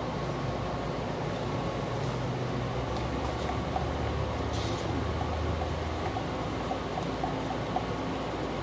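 Steady low mechanical hum with a faint steady tone, like a fan or air-conditioning unit running, with a brief hiss about midway and a few faint light ticks near the end.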